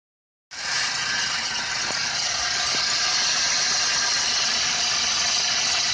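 Opel Corsa C 1.2 Twinport petrol engine running steadily with an extraneous whistle over it, which appears as soon as the engine starts and which the owner has not traced. The sound begins about half a second in, with two faint clicks a little later.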